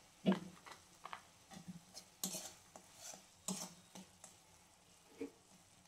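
A steel spatula scraping and tapping against a metal kadhai in short, irregular strokes as salt is stirred into frying masala, with a faint sizzle underneath.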